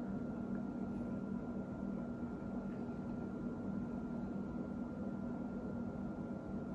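A steady machine hum with a faint constant high tone running over it, unchanging throughout.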